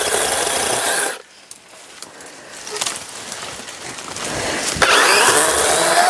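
Chainsaw cutting through brush at full throttle in two bursts, one for about the first second and another from about five seconds in, with a quieter lull between.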